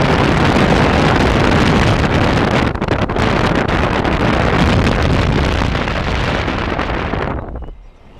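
Loud wind rush on the microphone and road noise from a car driving at speed, cutting off sharply near the end.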